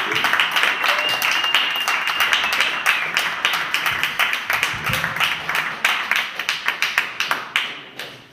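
A small audience applauding by hand, with a thin high whistle for a couple of seconds about a second in. The clapping thins out and fades away near the end.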